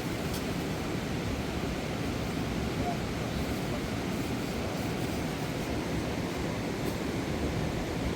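Steady rush of a fast mountain river tumbling over rocks.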